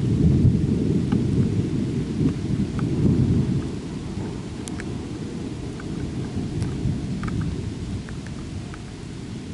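A long roll of deep thunder, loudest at first and slowly dying away over several seconds, over rain with scattered drips ticking.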